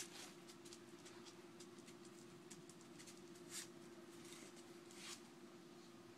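Near silence: a faint steady hum with scattered soft ticks and clicks, two of them slightly louder, about three and a half and five seconds in.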